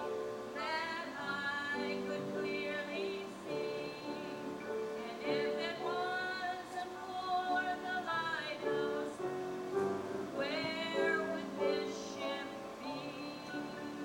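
A woman singing with instrumental accompaniment, her long held notes wavering with vibrato over steady sustained chords.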